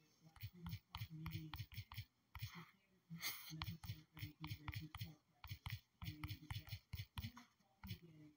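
Faint quick taps of typing on a phone's touchscreen keyboard, several clicks a second with short pauses between bursts.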